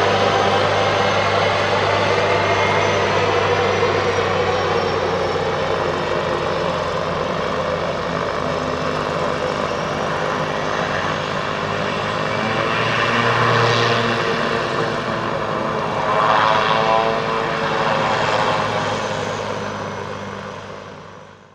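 Pilatus PC-6 B2-H4 Turbo Porter's PT6A turboprop engine and propeller running at taxi power: a steady propeller hum with a high turbine whine above it, swelling briefly twice in the second half, then fading out near the end.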